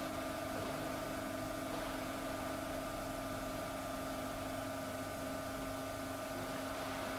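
Steady background hum with a few constant tones over an even hiss, the noise floor of an old analogue video recording; no footsteps or other movement stand out.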